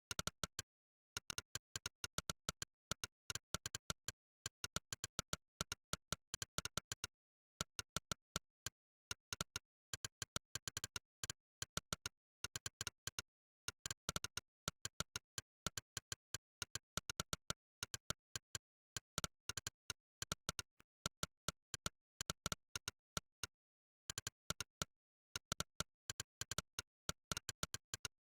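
Monkeytype's 'click' keypress sound effect, one short sharp click per keystroke, in quick irregular runs of several clicks a second as someone types steadily. The runs break off for about a second a few times, near the start, about a quarter of the way in and a few seconds before the end.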